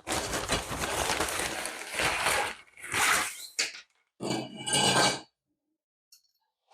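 Rustling and clattering from a folding camping table and its packaging being handled, in three noisy stretches with some metallic ringing in the last, stopping a little past five seconds in.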